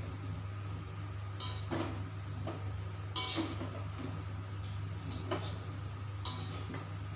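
A slotted spatula scrapes and knocks against a metal wok while stirring vegetables and grated coconut, about five separate scrapes a second or two apart, over a steady low hum.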